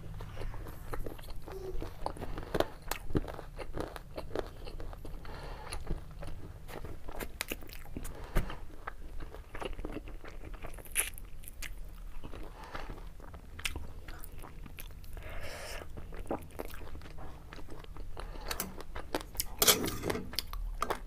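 Close-miked mouth sounds of a person chewing food: wet smacks and small sharp clicks. Near the end come a few sharper clicks as a metal fork is worked in a ceramic noodle bowl.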